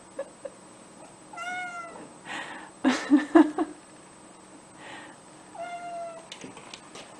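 Domestic cat meowing twice: two short meows about four seconds apart. Between them comes a louder, uneven burst of noise.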